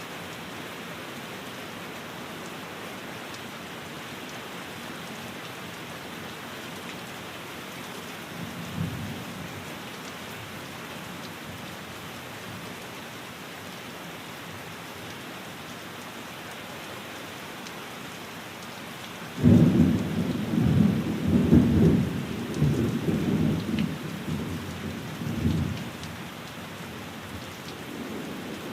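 Steady rain falling, with a faint rumble of thunder about nine seconds in and a loud roll of thunder that breaks suddenly near the end and rumbles on for several seconds before fading.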